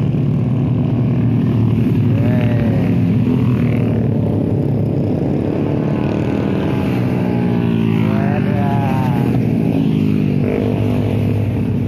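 Yamaha MX motorcycle's single-cylinder four-stroke engine running under way at cruising speed, its pitch slowly rising and falling with the throttle, over steady wind and road noise.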